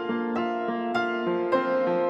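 Background music: a soft keyboard melody of evenly struck, ringing notes, about three a second.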